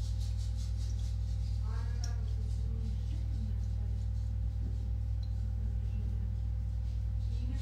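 A steady low electrical-sounding hum with faint steady tones above it, and a distant voice heard briefly about two seconds in and again near the end.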